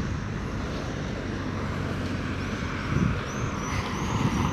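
Steady road traffic noise, with faint high chirps repeating over it.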